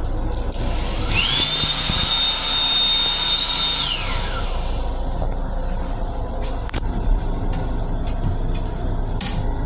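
Built-in hand dryer in an M7 railcar restroom sink unit: its blower whines up to a high steady pitch about a second in, runs for about three seconds over a loud hiss of air, then winds down with a falling whine. A steady low rumble lies underneath, with a few sharp clicks near the end.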